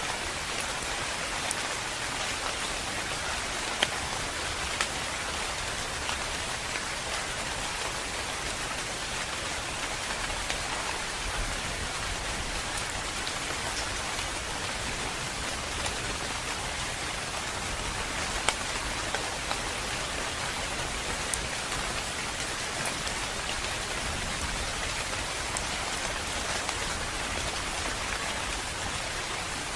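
Steady calm rain falling, an even hiss with a few sharper drop ticks scattered through it.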